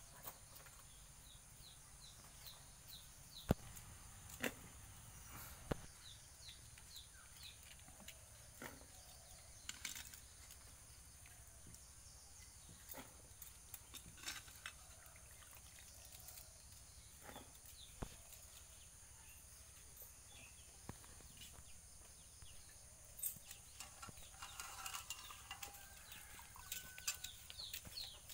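Faint rural outdoor ambience: birds chirping in quick runs near the start and again near the end. Through it come scattered sharp clicks and knocks as chopped vegetable pieces are put into metal cooking pots.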